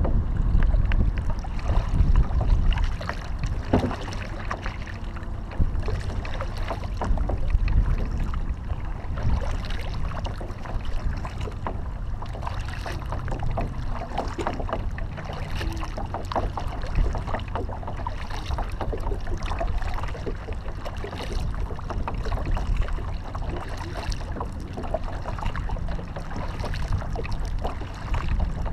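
Kayak paddle blades dipping into the water with irregular splashes and drips, over a steady low rumble of wind buffeting the microphone.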